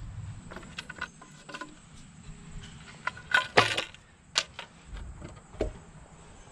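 Scattered clicks and knocks from handling a wooden board and tools, the loudest a short knock about three and a half seconds in.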